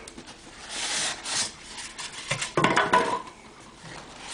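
Cardboard and packaging rubbing and scraping as a shipping carton is unpacked and the boxed computer is worked out of it. There are a few separate scrapes, the loudest a little past the middle.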